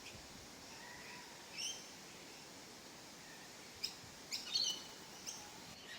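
Birds giving short, high chirping calls: one a little over a second in, then a quick cluster of several about four to five seconds in, over a steady background hiss.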